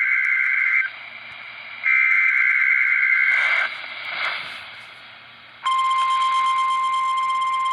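Emergency alert data bursts over weather radio: a harsh two-pitch warble in long bursts, the second starting about two seconds in after a second's gap, then a brief stretch of static. About six seconds in, the steady single-pitch NOAA Weather Radio warning alarm tone starts and holds, sounded here as a test of the alarm receivers.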